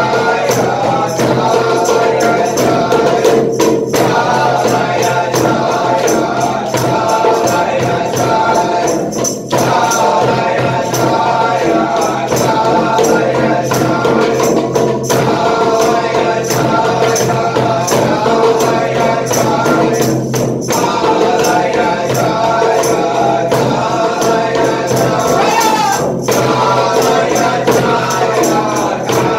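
Devotional chanting: voices holding long sustained tones over fast, steady jingling percussion. The voices break off briefly about every five and a half seconds, then resume.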